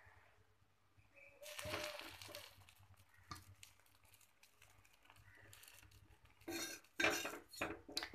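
Steel spatula scraping and clinking against a hot iron tawa while bread is laid on and pressed, ending in a run of loud metal clanks.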